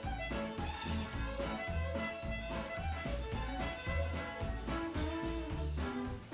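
Background music: an upbeat swing-jazz style tune with a steady beat, bass line and brass.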